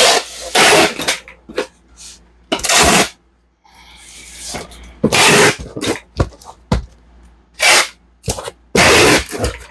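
Packing tape run off a tape gun in about six short, loud rips, with a softer, longer pull about four seconds in.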